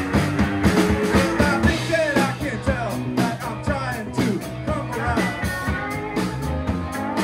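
Rock band playing live: drums, electric guitars and bass, with regular drum hits.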